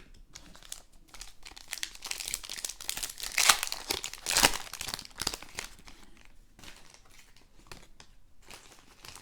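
Foil wrapper of a Panini Prizm trading card pack being torn open and crinkled by hand. The crackling is busiest in the first half, with sharp rips about three and a half and four and a half seconds in, then thins out.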